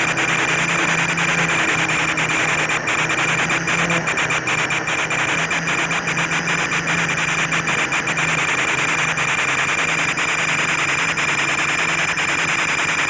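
Quadcopter motors and propellers humming steadily in flight, under a dense, even hiss.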